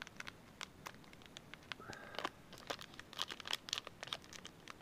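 Foil trading-card pack being torn open and crinkled by hand: a run of quick, irregular crackles.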